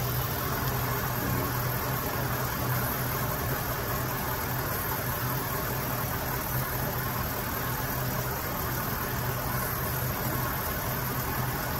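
Dodge Ram 1500 pickup engine idling steadily with a continuous low hum.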